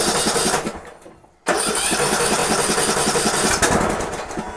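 An engine cranking on its starter without catching, in two tries: a short one that stops about a second in, then a longer one that fades near the end. It is a cold start with the choke on, after the engine sat for days and would not start.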